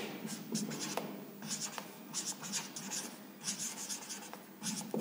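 Marker pen writing on a whiteboard: a run of short, high-pitched strokes as a word is written out letter by letter.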